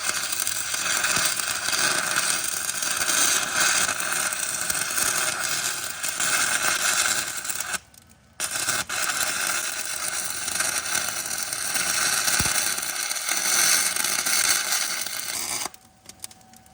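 Stick (shielded metal arc) welding with 6010 rod at 90 amps, which the welder thinks is too hot: the steady hiss of the arc. It breaks off for a moment about eight seconds in, strikes again, and stops near the end.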